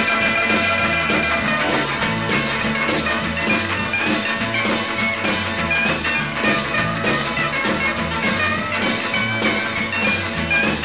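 Instrumental break of a 1965 rock and roll dance record: the band plays with a steady beat, a bass line and a lead melody, and no singing.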